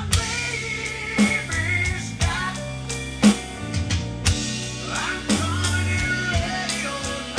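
Rock music on a drum kit with guitar and bass, the snare hitting a steady backbeat about once a second.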